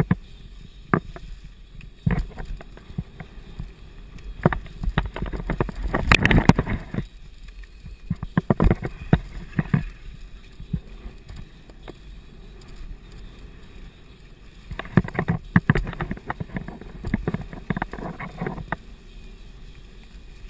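Mountain bike rolling down a dry dirt trail strewn with leaves. Tyres run over dirt and leaf litter, and the bike rattles and knocks over bumps, roughest about six seconds in and again from about fifteen to eighteen seconds.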